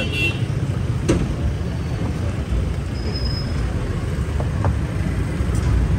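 Street traffic: a steady low rumble of vehicle engines, with one sharp knock about a second in.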